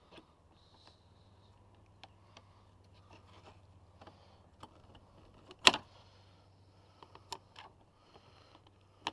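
Light clicks and taps of a flathead screwdriver working Dzus quarter-turn fasteners, with one sharp click a little past halfway, over a faint steady hum.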